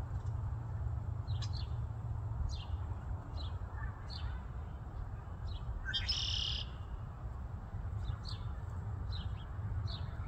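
Canada goose goslings peeping: short, high chirps every half-second to a second, with one longer, louder call about six seconds in. A steady low rumble runs underneath.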